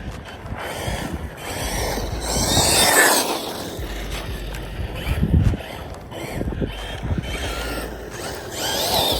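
A 1/8-scale RC buggy's brushless motor, running on a 4S battery, whining up and down in pitch as it accelerates and backs off across dirt and grass, with its tyres throwing dirt; loudest about three seconds in. Wind rumbles on the microphone.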